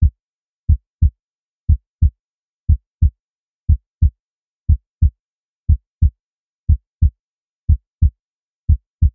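Heartbeat sound effect: pairs of low thumps about a third of a second apart, repeating steadily at about one beat a second, with dead silence between the beats.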